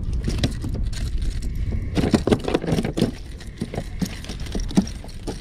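Irregular knocks, slaps and rattles, densest about two to three seconds in, over a steady low rumble of wind on the microphone: a freshly landed spotted seatrout thrashing as it is handled in the kayak.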